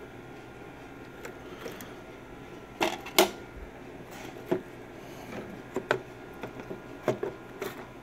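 Memory modules being pulled from an early 2008 Mac Pro's memory riser card, their slot latches snapping open: a series of sharp plastic clicks. The loudest are two close together about three seconds in, with more scattered toward the end.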